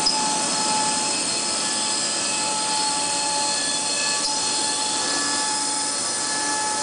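CNC router machinery running steadily: the spindle, the vacuum hold-down pump and the dust collector together make an even rushing air noise with a steady whine of several fixed tones.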